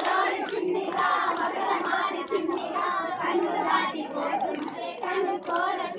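A group of women singing together in chorus while clapping their hands to a steady beat, as they dance in a circle.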